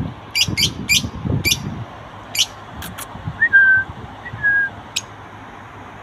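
Lovebirds giving short, sharp, high-pitched chirps at irregular intervals, about eight in all. A little past halfway come two short whistled notes about a second apart, each rising quickly and then held briefly.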